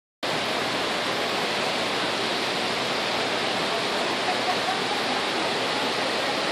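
Steady, even rushing noise with no distinct strikes or changes.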